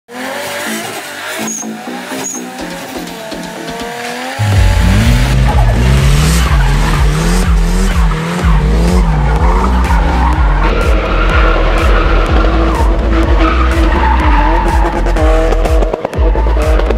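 Loud music with a heavy, pulsing bass beat that comes in suddenly about four and a half seconds in, after a quieter opening of sliding tones.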